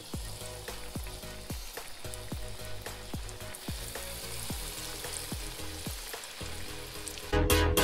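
Breaded fish fillets sizzling as they fry in hot peanut oil and butter in a skillet, a steady crackling hiss. A quiet drum beat runs underneath, and music comes in loud near the end.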